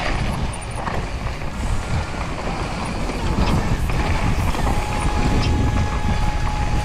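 Mountain bike descending a rough dirt trail, heard from a rider-mounted camera: tyres rumbling over the ground with scattered knocks and rattles from the bike over bumps. A steady high tone comes in about two-thirds of the way through and holds.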